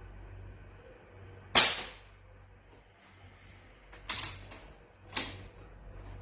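A single sharp crack from a Gamo PCP air rifle being fired, about a second and a half in, followed by two quieter sharp clacks around four and five seconds in.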